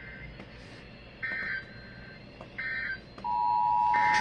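Emergency Alert System end-of-message data bursts: three short, screeching digital bursts about 1.3 seconds apart, closing the flash flood warning. About three seconds in, a steady two-tone EAS attention signal starts under the last burst, announcing the next alert.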